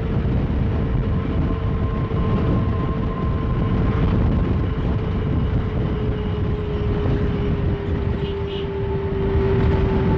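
Road and engine noise of a moving vehicle heard from inside: a steady low rumble with a constant whine that drifts slightly lower in pitch.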